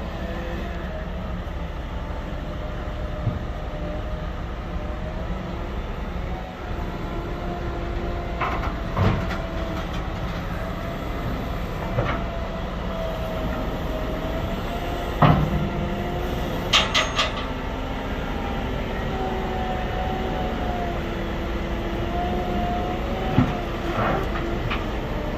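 Caterpillar 926 wheel loader's diesel engine running, its pitch rising and falling as it is driven onto a trailer, with several sharp clanks along the way.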